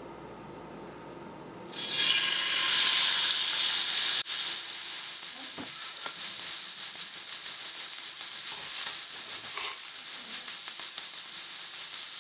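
Skirt steak hitting a cast iron skillet of hot avocado oil: a loud sizzle starts suddenly about two seconds in, then about two seconds later it drops to a steady, quieter sizzle as the steak sears.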